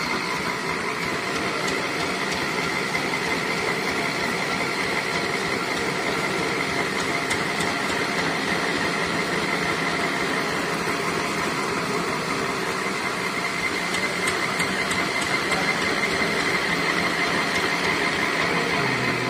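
Engine-driven winch running steadily as it hoists a metal bucket loaded with a large stone up a deep well shaft on a steel cable.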